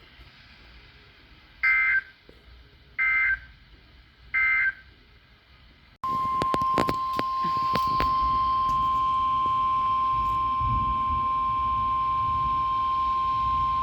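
NOAA Weather Radio emergency alert signals: three short two-tone digital data squawks about a second and a half apart, the end-of-message bursts of a warning. Then, about six seconds in, after a click, the steady single-pitch warning alarm tone starts and holds over crackly radio static.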